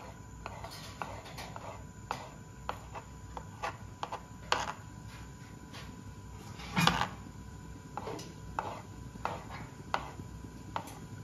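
Kitchen knife chopping boiled egg whites on a plastic cutting board: irregular short knocks of the blade on the board, a little over one a second, with two louder ones about four and a half and seven seconds in.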